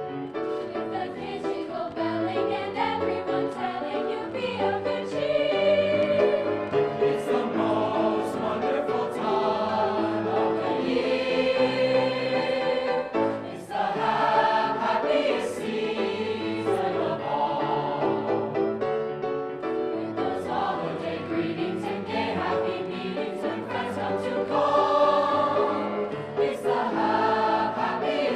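A high school choir singing a piece in several voice parts, with long sustained notes and a short breath between phrases about halfway through.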